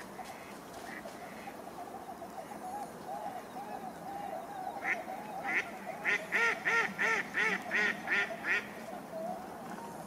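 A large flock of ducks and swans on the river calling together, a steady mass of overlapping calls. About halfway in, one duck gives a loud run of about ten quacks, some three a second.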